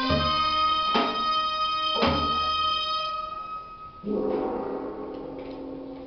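Korean traditional dance music: a held wind-instrument melody over three drum strokes about a second apart. The music winds down about four seconds in, leaving a softer held note.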